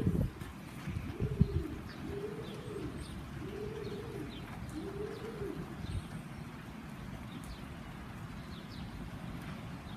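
A dove cooing: a deep 'ooh' repeated about four times, each coo under a second long, rising and falling in pitch, stopping about halfway through. Two dull thumps near the start are the loudest sounds.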